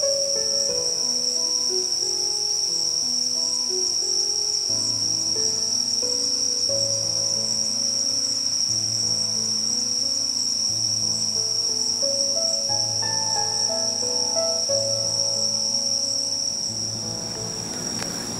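Insects trilling steadily in one continuous high pitch, under background music of stepped melodic notes and a bass line that fade out near the end.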